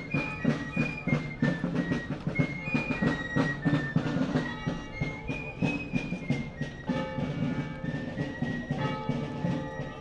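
A marching band playing in a procession: a high melody of held notes over dense, rapid drumming.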